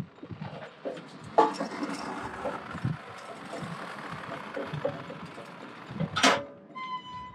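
Irregular metal clanks and knocks from a hydraulic engine hoist being worked and moved, with a short high squeal near the end.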